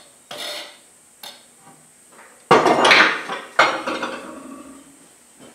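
Two loud metallic clanks about a second apart, each ringing away: an angle grinder and a forged steel piece being set down on a steel workbench.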